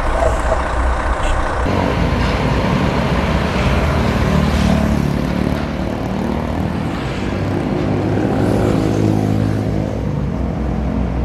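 UD Quester GWE 370 heavy truck's diesel engine running as it pulls a loaded lowbed trailer, a steady low drone. The sound changes abruptly about two seconds in.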